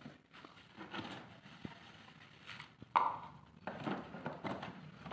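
Thin plastic of a large water jug knocking and crinkling as a cobra is put into it and the jug is handled, with one sharper, louder knock about three seconds in.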